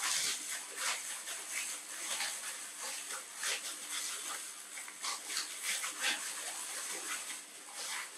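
Irregular crackling and rustling of dry instant noodles being broken up by hand, with their plastic packet being handled.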